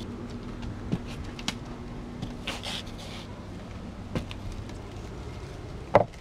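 Steady low background hum with light scattered clicks, a brief hiss about two and a half seconds in, and one sharp knock near the end.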